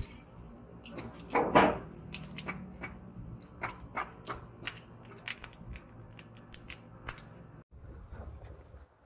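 Lumps of charcoal clinking and scraping in a charcoal forge as a long poker stirs and rakes the coals: a string of sharp clicks, with a louder scrape about a second and a half in.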